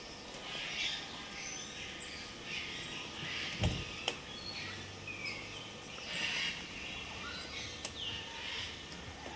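Small birds chirping and twittering in short, frequent calls throughout, with a single low thump about three and a half seconds in.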